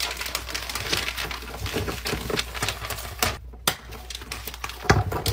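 Paper and binders rustling and clattering as notebooks are gathered up and shuffled on a desk, with a couple of dull thumps near the end.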